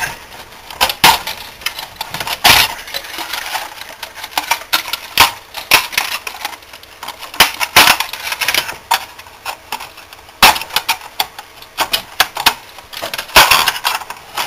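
Hands working a soft starter apart: irregular clicks, clinks and knocks as wiring plugs and the green control circuit board are worked loose from the aluminium chassis. A few louder knocks stand out, about every two to three seconds.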